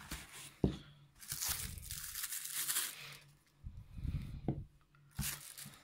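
Clear plastic accessory bags crinkling and rustling as they are handled and pulled out of a carry case, with a sharp knock about half a second in and soft bumps later.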